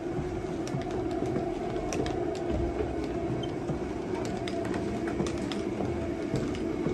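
DeWalt 68,000 BTU cordless forced-air propane heater running: a steady hum from its battery-driven fan and burner, with scattered light clicks and taps over it.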